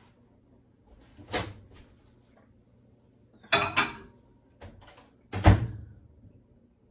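A few separate knocks and clunks of a microwave oven being loaded: the door opened, a dish set inside, and the door shut with the loudest clunk near the end.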